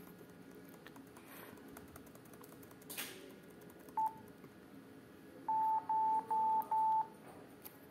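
ThinkPad laptop beeping during startup as keys are pressed at the Lenovo boot screen: one short beep about four seconds in, then four short beeps at the same pitch in quick succession.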